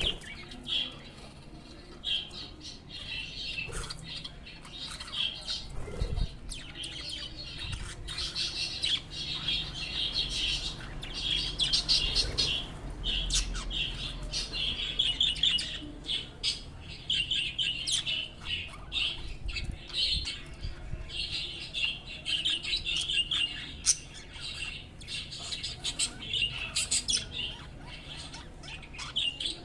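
Several budgerigars chirping and chattering in a dense, continuous run of short high warbling calls with brief pauses. A few low thumps and sharp clicks come through under the calls.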